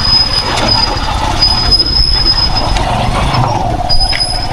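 A vehicle driving with a steady low rumble, and a thin high-pitched squeal that sounds for a second or so at a time and breaks off several times.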